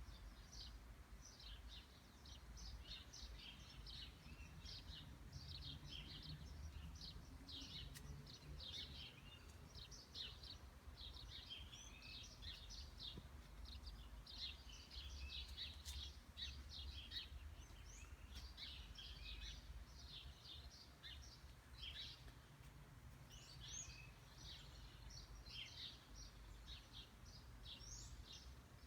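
Many small birds chirping and twittering in quick, overlapping notes without a break, faint, over a steady low rumble.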